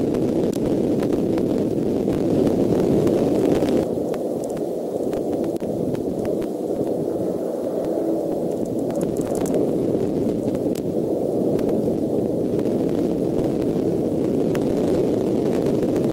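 Steady low rushing noise picked up by the outdoor nest-cam microphone, with faint scattered ticks over it; it cuts off suddenly at the very end.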